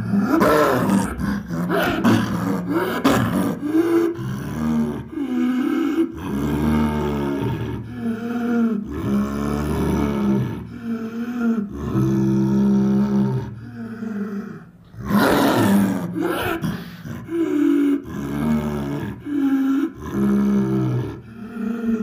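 Cartoon creature growls and roars as a sound effect: a string of separate growls, each about a second long with short breaks, with a harsher, louder roar about fifteen seconds in.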